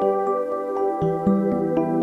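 Gentle new-age background music: held chords with a steady run of notes about four a second.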